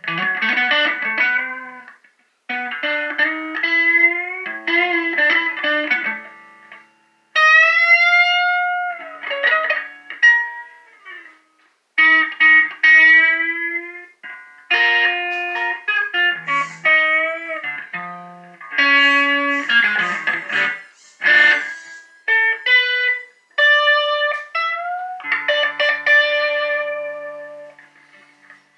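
Electric guitar played through an effects pedal: a blues lead line of single-note phrases with string bends, broken by short pauses.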